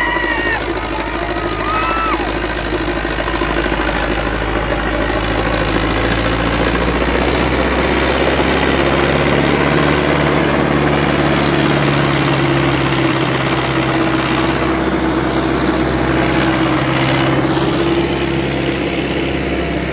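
Sonalika DI 750 III tractor's diesel engine running steadily under heavy load as it drags a disc harrow through deep sand. The engine note strengthens and rises slightly about seven seconds in.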